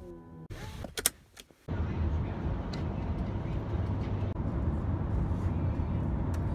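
Steady rumble of road and engine noise inside a car travelling at highway speed, starting abruptly about two seconds in. Before it come a couple of sharp clicks and brief sounds.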